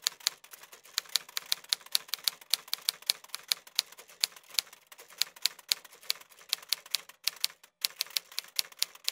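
Typewriter sound effect: keys striking one after another, about four strikes a second, with a short break about seven seconds in.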